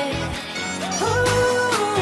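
Pop dance music playing with a steady beat and a held melody line that steps up and down.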